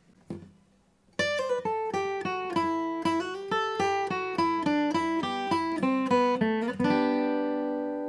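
Acoustic guitar playing a quick descending single-note lick in G, with runs of sixteenth notes, ending on a closed-position G chord that rings out and slowly fades. The lick starts about a second in.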